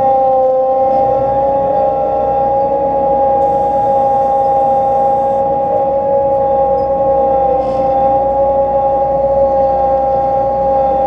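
John Deere 9500 combine running with a steady, unchanging whine in two high tones.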